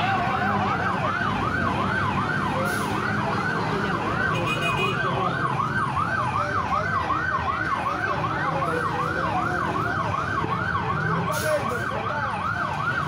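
Emergency vehicle siren on a fast yelp, its pitch sweeping up and down about three times a second, over street and crowd noise.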